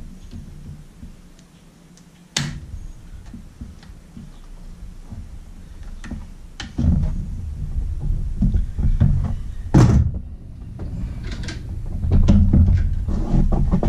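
Hand tools clicking and knocking against the metal of an outboard power head as pliers work on its hoses and fittings. There is a sharp click about two seconds in, then a busier run of knocks and rattles in the second half, the loudest knock near ten seconds.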